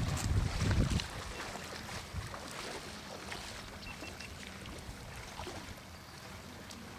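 Wind buffeting the microphone in a low rumble for about the first second, then steady wind and water noise aboard a small fishing boat, with scattered small clicks.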